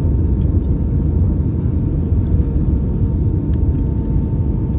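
Airbus A320 cabin noise: a steady low rumble of the engines and airflow, with a faint steady tone above it and a few light clicks.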